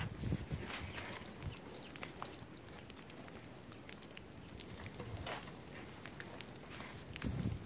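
Faint patter of heavy snowfall: scattered soft ticks as flakes land on the phone and coat, with a few soft low thumps from the phone being handled.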